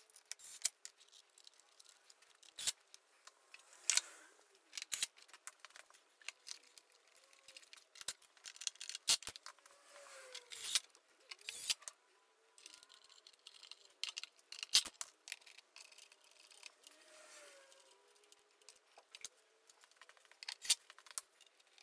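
Irregular sharp metallic clicks and clinks, one every second or so, as the metal deck plate of a Razor E300 electric scooter is fitted back on and its screws are set in and driven home.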